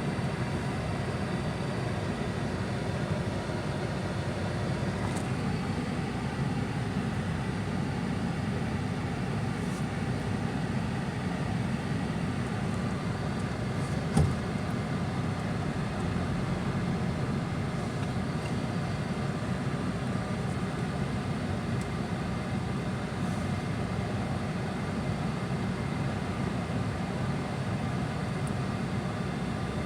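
Steady road and engine noise of a moving car heard from inside the cabin, with a single knock about halfway through.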